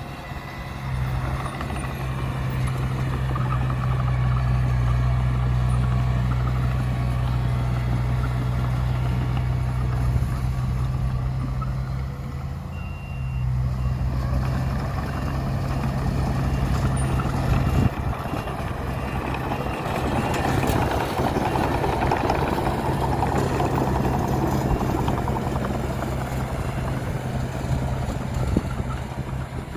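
Heavy diesel engines of earthmoving machinery running steadily under load, with a faint repeating reversing-alarm beep about halfway through.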